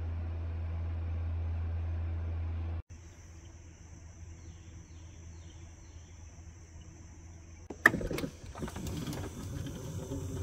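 A steady low hum, then after an abrupt cut a steady high insect drone with faint chirps. Near the end comes a sharp click, followed by rustling and clattering handling noise.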